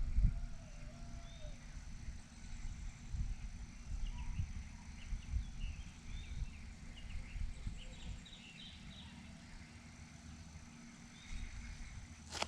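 Outdoor ambience: scattered bird chirps over an uneven low rumble, with a faint steady high tone and a sharp click near the end.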